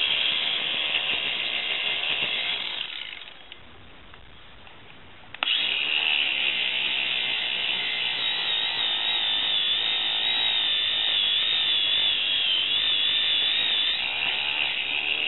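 Ryobi angle grinder with a wire wheel, running as it scrubs a lead battery post down to clean metal. It winds down about three seconds in and is switched on again two seconds later, starting abruptly. Its high whine wavers in pitch as the brush works the post.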